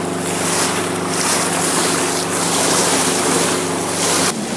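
Diesel engine of a small 25 ft trawler running steadily underway, with a rush of wind and water over it. The sound drops abruptly near the end.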